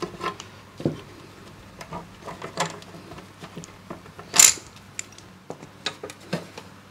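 Spring clamps and a bar clamp being loosened and lifted off a plastic radio case: a run of scattered clicks and knocks, with one louder clatter about four and a half seconds in.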